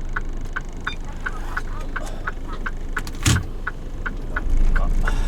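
Mitsubishi Fuso Super Great truck's 6R20 diesel engine running, with an even ticking about three times a second over it. There is a single thump about three seconds in, and the engine rumble grows louder near the end.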